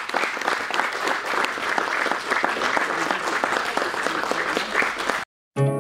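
Audience applauding, a dense patter of clapping that cuts off abruptly about five seconds in. A plucked-string music track starts just before the end.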